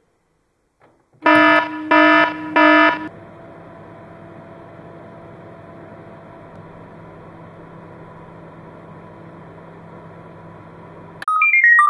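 Microwave oven keypad beeping three times in quick succession, then the oven running with a steady hum for about eight seconds, then a quick falling chime near the end.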